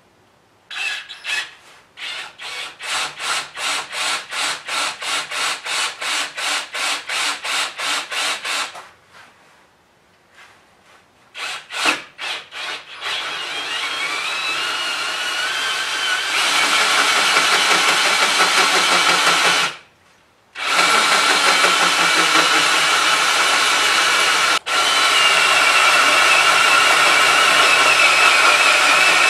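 Cordless drill running a 1-1/8 inch hole saw into an aluminium intake manifold. For the first several seconds the cut stutters in rapid pulses, about three a second. It then stops, gives a few short bursts, and settles into steady cutting with a rising motor whine, stopping briefly about twenty seconds in before cutting on.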